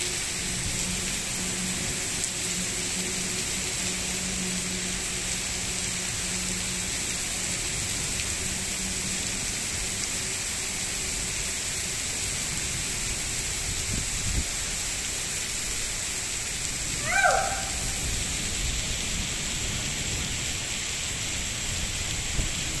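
Heavy rain pouring steadily onto wet paved ground. About seventeen seconds in, a brief call falling in pitch is heard over it.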